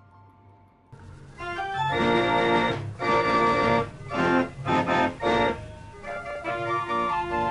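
A faint tune plays for about a second, then loud, rhythmic carousel organ music starts, playing chords.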